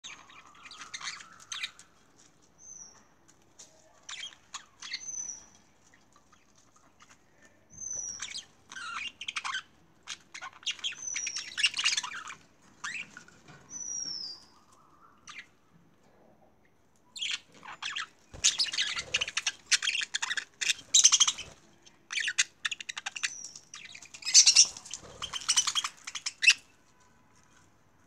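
Budgerigars chattering in scratchy warbling bursts, mixed with short whistled calls that slide downward in pitch. There are gaps of quiet in the first half, and the chatter grows busier and nearly continuous in the second half.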